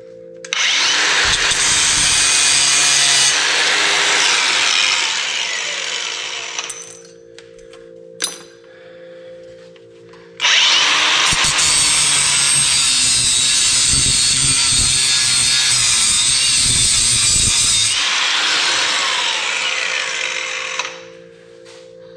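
A power tool cutting through a scrap metal fitting, run twice: once for about six seconds, then, after a pause with a sharp click, again for about ten seconds.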